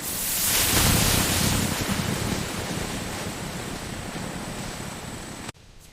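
A rushing noise with no tone in it. It swells over the first second, slowly fades, and cuts off abruptly near the end.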